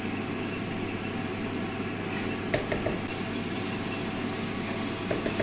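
Steady low mechanical hum under a dense, even background noise, with a sharp click about halfway through and a few light taps near the end.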